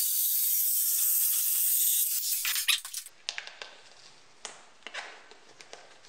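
Electric jigsaw cutting through the thin sheet-steel wall of a barrel: a steady harsh rasp for about two seconds, then a few short bursts, stopping about three seconds in. Faint clicks of handling follow.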